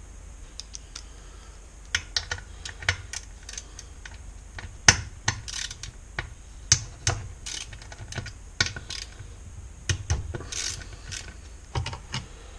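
Parts of a dismantled Honda GX35 engine being handled and fitted together by hand: irregular small clicks and light knocks of metal parts, a few sharper ones around the middle.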